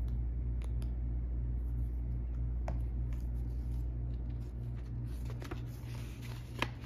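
Paper dollar bills being handled and slipped into a cash envelope in a ring binder: soft paper rustles and a few faint ticks over a steady low hum.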